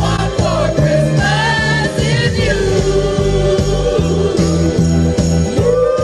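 Upbeat Christmas pop song with jingle bells, choir-like singing and a steady beat, with people singing along.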